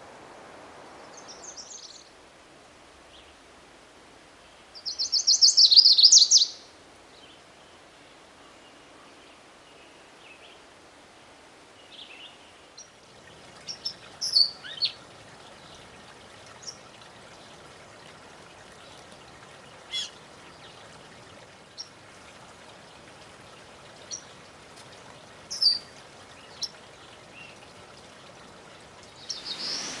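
Male chestnut-sided warbler singing one loud, rapid, high-pitched song about five seconds in, after a faint short phrase at the start. After a cut, a rose-breasted grosbeak gives short, sharp, high call notes at irregular intervals.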